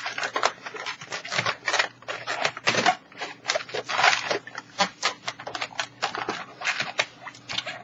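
Inflated latex 260 modelling balloon being squeezed and twisted into bubbles and an ear twist, giving a fast, irregular run of rubbery squeaks and crackling clicks.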